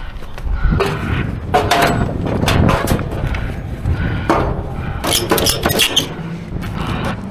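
Irregular metallic clanks and knocks, densest in the middle few seconds, from a car being loaded onto the upper deck of a car-hauler trailer.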